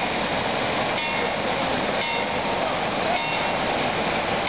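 Water pouring steadily from a water-park play structure's overhead pipe and ground spray jets: a continuous rush of falling, splashing water.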